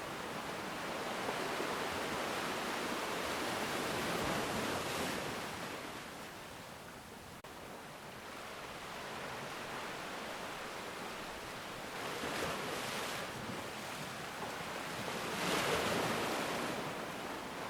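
Ocean surf: waves washing in one after another, each rush of water swelling and fading. There is a lull about seven seconds in, and the loudest wave comes near the end.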